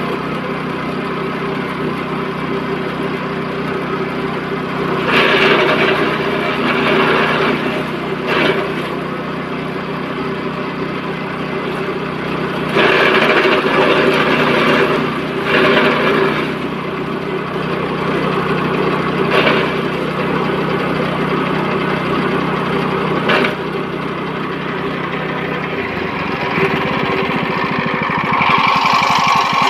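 Small-engine grass chopping machine (chaff cutter) running steadily, with louder rushing surges several times as grass is fed through and cut. Its running note changes near the end.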